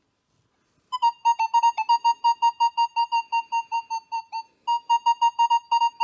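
Nokta Makro Legend metal detector in Field mode with full tones, sounding a steady mid-pitched target tone in short repeated beeps, about five a second, for a silver seated quarter reading about 51 on the target ID. The beeps start about a second in and pause briefly a little after four seconds.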